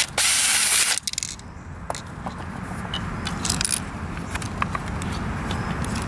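Cordless drill-driver run in a quick blip and then for just under a second, loosening screws from a plastic bike-lock housing. It is followed by scattered small clicks and rattles as the plastic housing and parts are handled.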